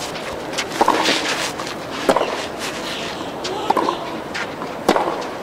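Tennis ball struck by rackets in a baseline rally, four sharp hits spaced about a second and a half apart as the two players trade groundstrokes.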